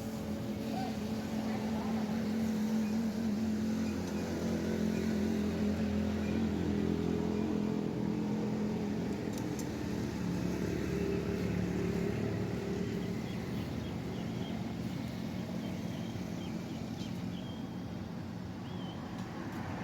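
A motor or engine running steadily with a low hum, a little louder in the middle and easing near the end.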